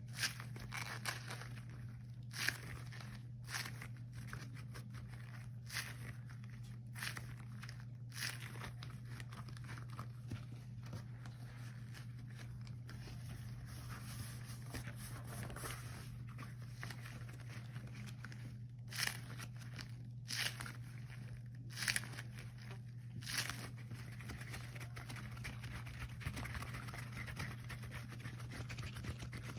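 Rubber gloves handled close to the microphone: scattered sticky crackles and short clicks, with no regular rhythm, over a steady low hum.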